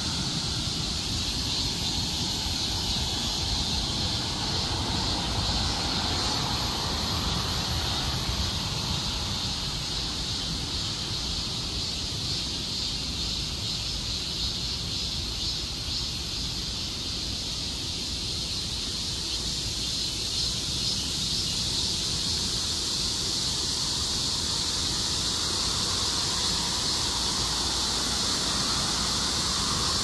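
Cicadas buzzing in a continuous high drone that holds steady throughout, with road traffic rumbling low underneath.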